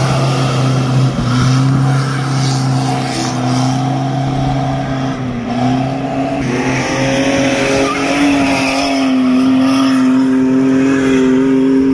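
Off-road race 4x4 engines running hard at high revs on a rough dirt track, a steady high engine note that dips briefly about halfway through and then holds again.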